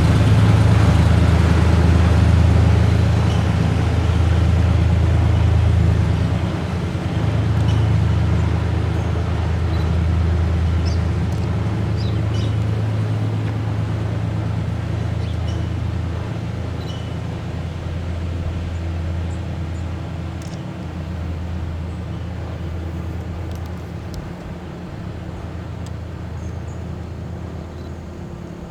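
Federal Signal STH-10 mechanical siren winding down after its test run: a loud, low drone that fades slowly and steadily.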